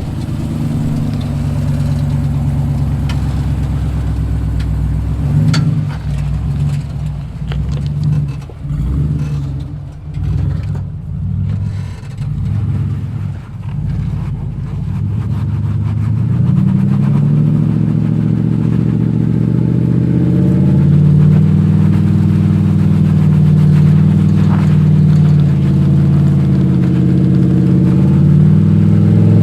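Off-road 4x4's engine working hard while rock crawling. It runs steadily, then surges and drops in a string of throttle blips, then climbs to higher revs and holds there for the second half.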